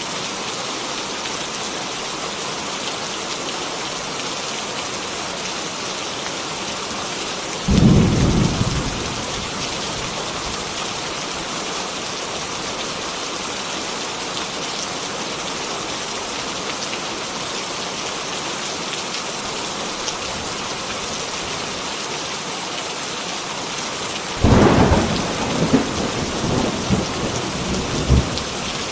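Heavy rain falling steadily. A short clap of thunder comes about eight seconds in, and a longer peal of thunder with several cracks runs from about 24 seconds until near the end.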